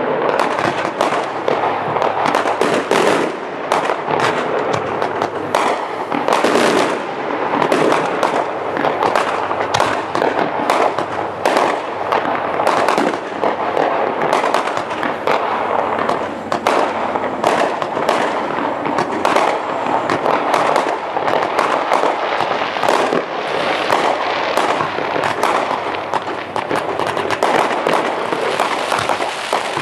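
Fireworks display going off: a rapid, continuous stream of bangs and crackles from bursting aerial shells.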